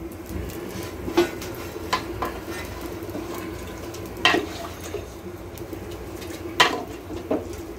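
Wooden spatula stirring biryani rice and potatoes in an aluminium cooking pot, with a few sharp knocks of the spatula against the pot, the loudest about four seconds in, over a steady low hum.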